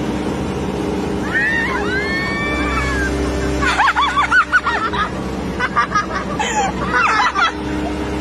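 Bulldozer engine running steadily, with high-pitched excited squeals and shouts over it through most of the stretch, loudest around the middle and near the end.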